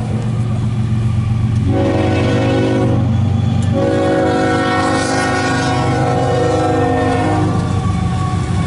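Diesel freight locomotive's air horn sounding in several blasts with short breaks, the last held longest, over the steady low rumble of the approaching train.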